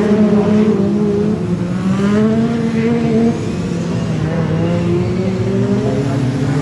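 Several BriSCA F2 stock car engines racing at once, their pitches rising and falling as the cars accelerate along the straights and ease off into the bends.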